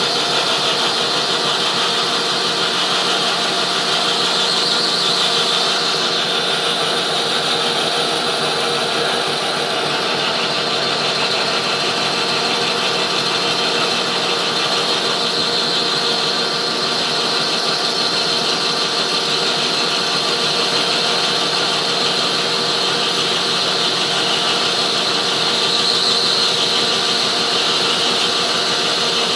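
Metal lathe running steadily while turning down brass bar stock, a continuous whine with several steady tones.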